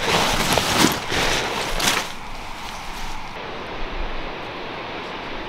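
A nylon tent fly rustling and flapping as it is shaken out, with two louder swishes in the first two seconds. It then gives way to a quieter, steady hiss of outdoor air.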